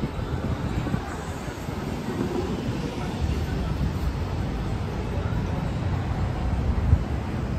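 Steady outdoor street noise: a low rumble of passing traffic.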